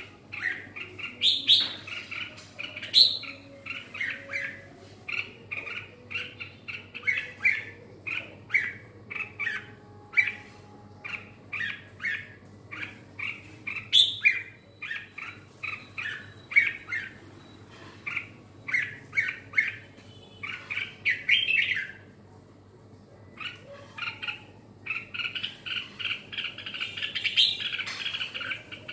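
Red-whiskered bulbul singing, a steady string of short, quick chirping phrases. It pauses briefly about three-quarters of the way through, then breaks into a denser run of chatter near the end.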